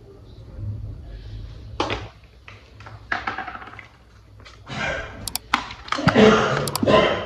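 Plastic toy train parts and packaging being handled, with rustling and irregular clicks, loudest near the end.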